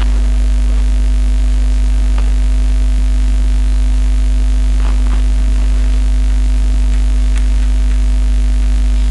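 Loud, steady low electrical mains hum with a buzzing edge, running unchanged throughout, with a few faint taps.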